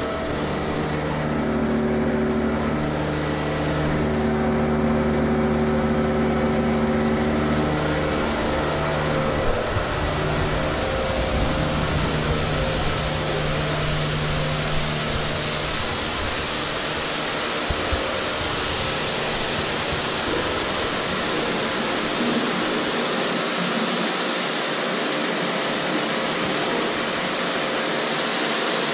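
Hot-water system machinery running with a steady hum of several tones. About two-thirds of the way through, a hose spraying scalding hot water takes over as a steady hiss.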